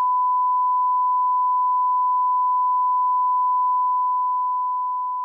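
Censor bleep: a steady, high-pitched pure tone dubbed over swearing, fading out over the last second or so.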